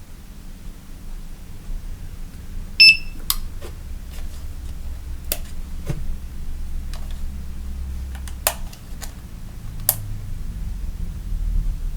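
A single short electronic beep from the Sonoff T1 switch's built-in beeper about three seconds in, the beep it gives when set to learn a remote. Several sharp clicks follow over the next seven seconds.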